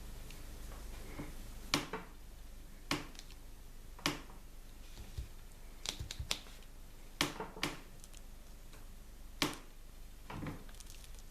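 Toys and packaging handled by hand: about a dozen sharp clicks and taps, irregular and roughly a second apart, some in quick pairs, over a low steady hum.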